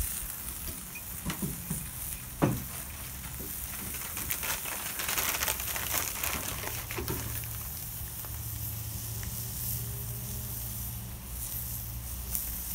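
Breaded chicken cutlets sizzling on a Blackstone 36-inch steel griddle, a steady fine crackle of frying. A few light taps come in the first seconds, the sharpest about two and a half seconds in.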